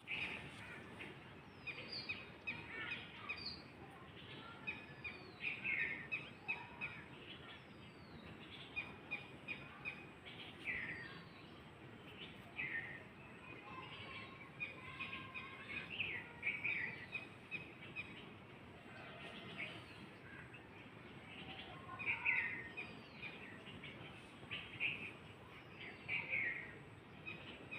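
Birdsong: chirps and trills with repeated short down-slurred whistles, over a steady background hiss.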